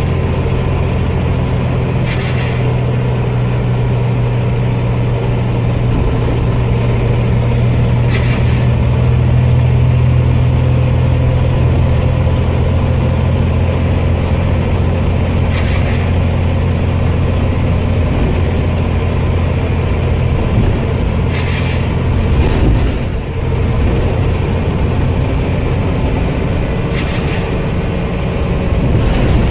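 Scania Omnicity bus engine running steadily, with about seven short, sharp hisses of escaping air every few seconds. This is the loud 'sneezing' the bus made because its air tanks were worn out. The engine note drops about two-thirds of the way through.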